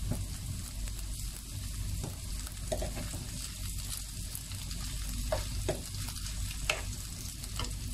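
Chopped chicken and onion frying with a steady sizzle in a nonstick frying pan while a wooden spatula stirs it, with several sharp clicks of the spatula against the pan in the second half.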